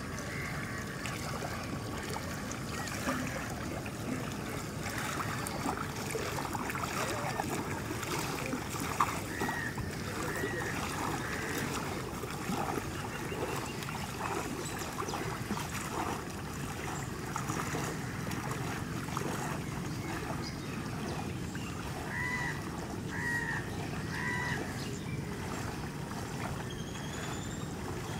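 Water sloshing and splashing steadily as a person wades knee-deep through floodwater.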